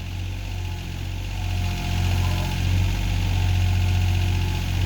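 John Deere backhoe's diesel engine running steadily, getting a little louder about a second and a half in as the bucket is curled.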